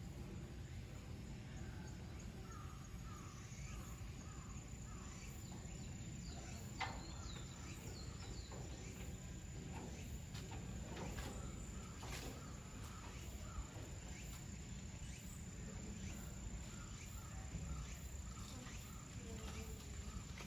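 Outdoor ambience: a steady low rumble under a high, thin insect trill, with short bird-like chirps, faint distant voices and a couple of sharp clicks.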